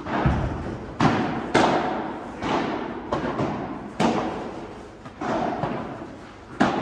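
Padel rally: a string of sharp pops as the ball is struck with solid padel paddles and bounces off the court and glass walls, about nine at uneven intervals, each echoing in a large hall.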